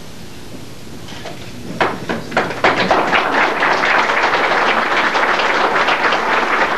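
Audience applause: a few separate claps about two seconds in, quickly swelling into dense, steady clapping.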